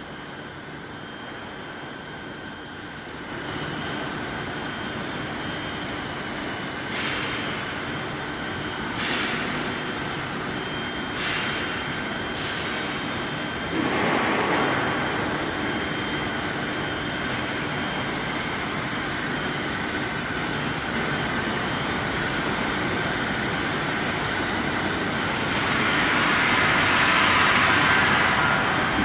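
Induction quenching line for threaded rebar running: a steady rushing noise with a thin, high, steady whine, swelling louder about halfway through and again near the end.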